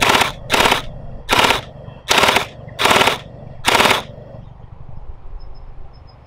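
Gel blaster firing six single shots at a steady pace, about one every 0.7 s. Each shot is a brief buzzing snap. The shots stop about 4 s in.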